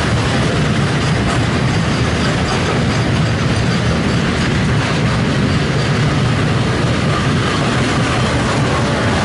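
Moving passenger train: a steady rumble of wheels running on the rails.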